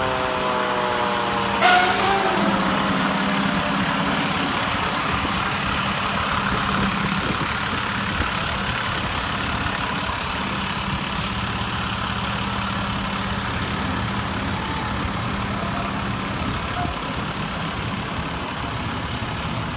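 Diesel engine of a new Pierce aerial ladder fire truck idling steadily. In the first second or so a falling whine dies away, and about two seconds in there is a short, sharp hiss of released air.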